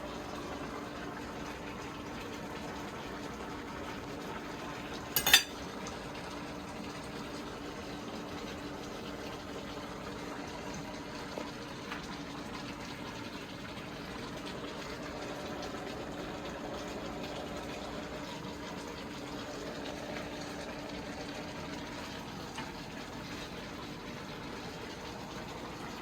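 Pots simmering and bubbling on the stovetop, with a steady hiss and faint hum. A single sharp clink, like a utensil against a pot or plate, comes about five seconds in.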